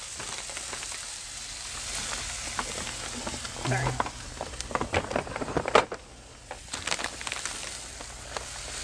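Chicken tenders and frozen shredded hash browns sizzling on a Blackstone flat-top griddle over medium-low heat, a steady hiss with scattered crackles. A few sharp clicks come in the middle.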